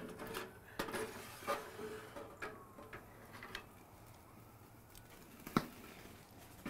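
Ribeye steaks searing under an infrared gas broiler running at over 1,500°F, fat popping and crackling in scattered sharp ticks over a steady low hiss, with one louder click about five and a half seconds in.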